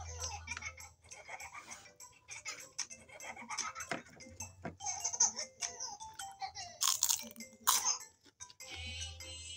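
Background music playing, with two sharp crunches of crisp fried food being chewed about seven and eight seconds in.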